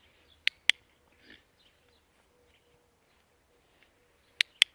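Dog-training clicker clicked twice, each time a sharp double click of press and release: one about half a second in and one near the end. It is used as the attention and marker signal for the dog.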